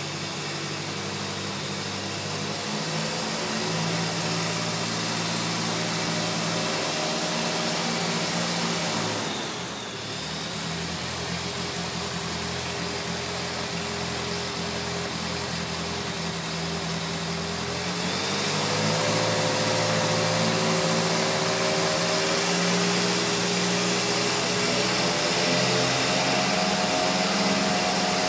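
A 1949 Ford tractor's four-cylinder engine running steadily. About ten seconds in the revs drop briefly and come back, then after about eighteen seconds they rise to a faster, louder steady speed.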